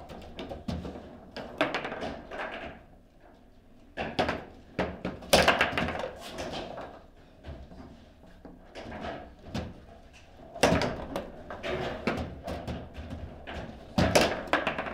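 Table football being played: the ball struck by the plastic players and rebounding off the table, with rods clacking, making a series of sharp knocks and thuds at irregular intervals.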